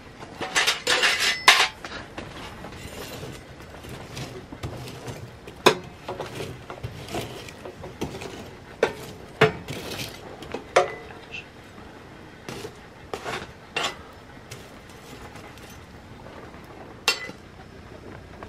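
Small steel tent wood stove being tended: irregular metallic clinks, clanks and scrapes as the glowing coals are raked to the front of the firebox. A quick flurry of loud clanks comes in the first second and a half, then scattered single knocks follow.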